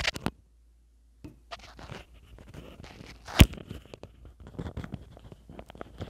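Close handling noise from fly tying at a vise: scratchy rustling and scraping of fingers and tools working the materials, with a few sharp clicks, the loudest about three and a half seconds in.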